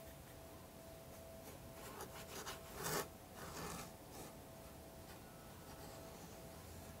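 Faint scratching of a watercolour brush stroking wet paint across paper: a few soft strokes between about one and four seconds in, the loudest about three seconds in.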